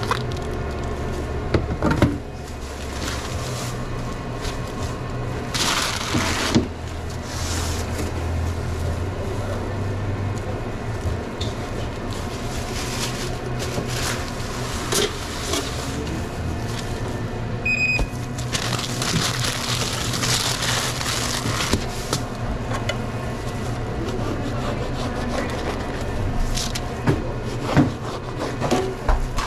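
Sandwich-making handling noises at a Subway counter: rustles, scrapes and knocks over a steady low hum, with a short electronic beep about 18 seconds in.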